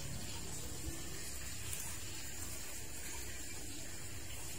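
Brazilian spinach being picked by hand, with a few faint clicks and rustles over a steady outdoor hiss that has an even, high-pitched band.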